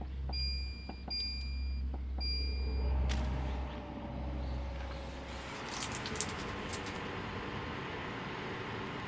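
An electronic device beeps three times over a low, steady hum; the hum cuts out about five and a half seconds in, leaving a steady hiss.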